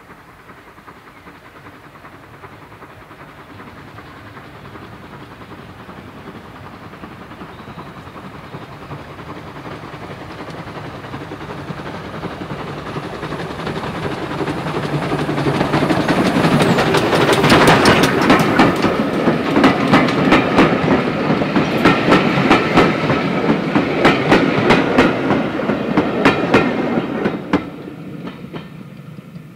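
GWR 1366-class pannier tank No. 1369 approaches with a train of coaches and passes close by, getting steadily louder for about fifteen seconds. As the coaches go past, the wheels click rapidly over the rail joints. The sound drops away near the end as the train passes.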